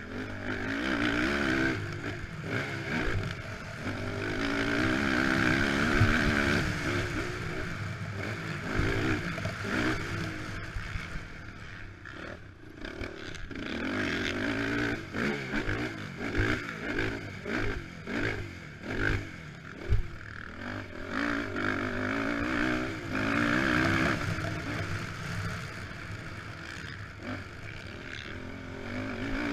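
Honda TRX450R quad's single-cylinder four-stroke engine revving up and backing off again and again as the throttle is opened and chopped, with a run of short throttle blips in the middle. Occasional knocks from the machine over rough ground.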